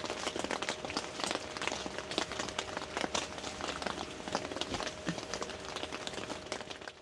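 Rain pattering on a surface, a dense, irregular spatter of drops, under a faint steady hum.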